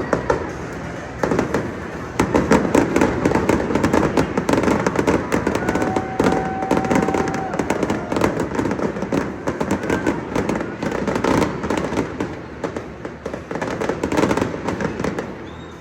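Fireworks going off in rapid succession: a dense, continuous crackle of many sharp pops and bangs.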